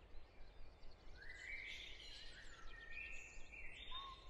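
Faint birdsong: a scatter of short chirps and trilling notes from small birds over a steady low background noise.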